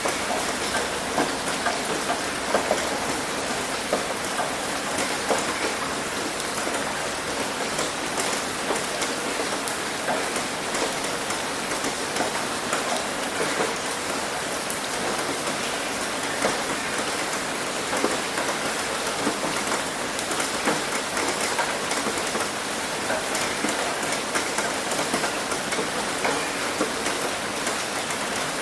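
Steady heavy rain hitting a roof, a dense hiss with many small sharp drop impacts.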